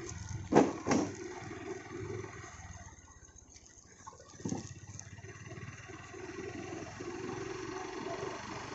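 Running vehicle engine and road noise heard from on board while riding along a street. Two sharp thumps come about half a second in, and another at about four and a half seconds. The noise drops off between about three and four seconds in, then builds again.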